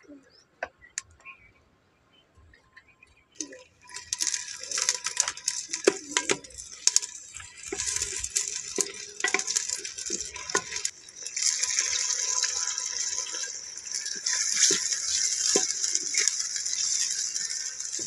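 Chopped greens sizzling and crackling in hot ghee in a clay pot, stirred with a ladle. A few clicks at first, then the sizzle starts about four seconds in and grows stronger around the middle.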